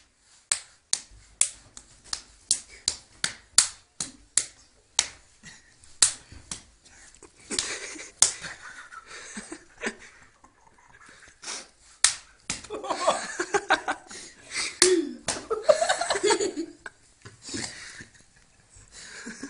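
A small boy's hand slapping a man's face and the hands shielding it, sharp smacks coming rapidly, about two a second, then more scattered. Laughter breaks out in the second half.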